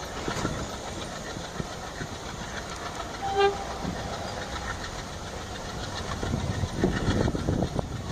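A short blast of a diesel locomotive horn about three seconds in, over a steady hiss of rain. Near the end the approaching passenger train's wheels start to rumble and clatter on the rails, growing louder.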